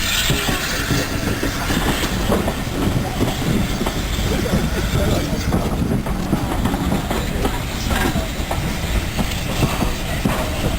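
A train running on the rails, with a steady low rumble and irregular wheel clicks over the rail joints.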